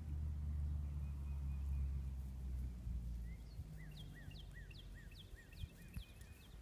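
A low steady hum fades out about three seconds in, and then a bird sings a series of about eight clear, down-slurred whistled notes, two or three a second. A few soft low thumps come near the end.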